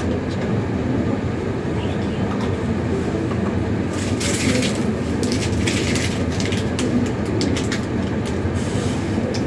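Steady low rumble in a room, with a run of crackles and clicks about four to seven seconds in as a small plastic water bottle is handled and its cap twisted.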